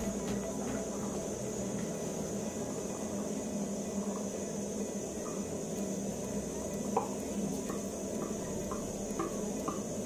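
Aluminium pot of potatoes boiling, a steady bubbling hiss, while boiled beans and maize (githeri) are scraped off a plate into the water with a wooden spoon. This gives a string of light clicks and taps in the second half, the sharpest about seven seconds in.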